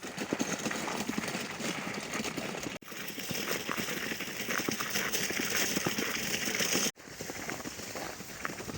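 Irregular rustling and crackling of dry corn plants, with many small snaps, over a steady high hiss. It cuts off sharply twice.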